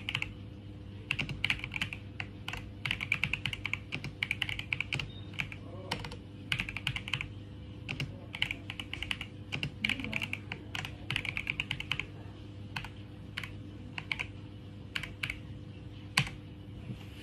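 Typing on a computer keyboard: irregular runs of quick key clicks broken by short pauses, with one sharper keystroke near the end. A steady low hum runs underneath.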